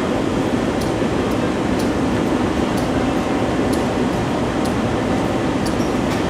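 Steady rumbling hum inside an underground Muni Metro station, with faint ticks about once a second.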